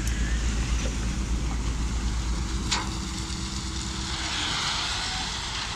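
Tipper truck's diesel engine running low and steady while its raised body tips crushed stone out onto the road bed. A rushing hiss of sliding gravel swells about four seconds in, with a sharp knock near the start and another about three seconds in.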